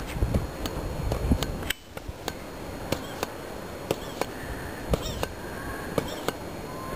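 Pogo stick bouncing on a gravel road: a steady run of sharp knocks as it lands, about two a second. A low wind rumble on the microphone stops suddenly about two seconds in.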